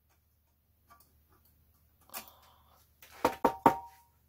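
Sheet-metal power-supply casing being handled: a faint knock about two seconds in, then three quick clanks near the end, each leaving a short ringing tone.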